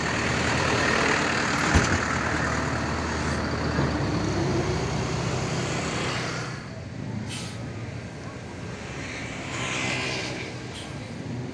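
Mercedes-Benz coaches' diesel engines running, with a single sharp knock about two seconds in; past the halfway point the sound drops in level and two short air-brake hisses cut through.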